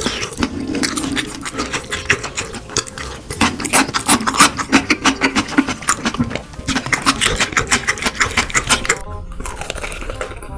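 Close-miked crunching and chewing of crispy fried chicken: rapid runs of crackly crunches, several a second, with short pauses between bites.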